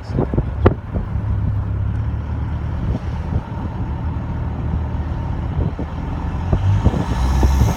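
Mitsubishi Triton turbo-diesel engine pulling under throttle, growing louder toward the end, then near the end a rushing turbo flutter as the throttle comes off. A few sharp ticks sound in the first second.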